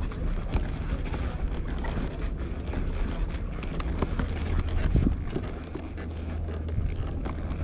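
Footsteps of someone walking, heard as irregular short clicks over a steady low rumble.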